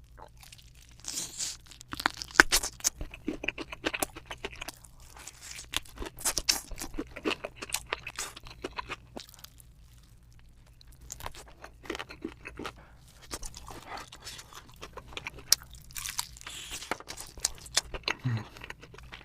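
Close-miked chewing and crunching of spicy bone-in chicken: irregular wet crackles and crunchy bites, easing off briefly near the middle.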